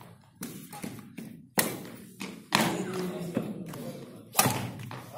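Badminton rally: rackets striking the shuttlecock back and forth, four sharp hits roughly a second apart, the later ones louder.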